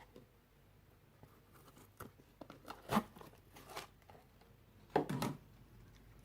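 Hands handling objects at close range: a string of short crinkling, rustling and clicking sounds, loudest about three seconds in and again about five seconds in.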